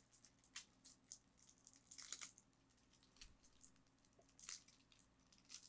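Faint crinkling and tearing of the clear plastic shrink wrap on a sealed deck of game cards as fingers pick at it and peel it off, in a few short crackles, the biggest about two seconds in.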